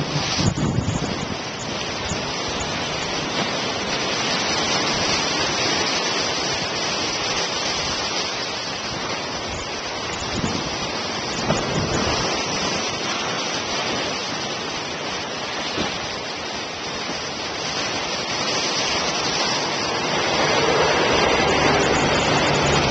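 Heavy surf breaking against a stone sea wall: a steady rushing wash with surges as waves hit. Near the end the low hum of an approaching Class 52 'Western' diesel-hydraulic locomotive joins in, and the sound grows louder.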